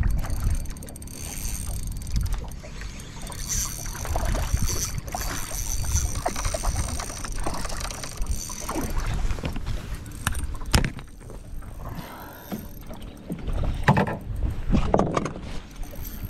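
Small fishing boat on open water: water lapping against the hull over an uneven low rumble, with one sharp knock about eleven seconds in.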